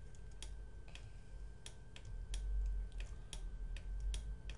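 Irregular clicking of computer controls, about two clicks a second, over a faint steady high-pitched whine and a low rumble.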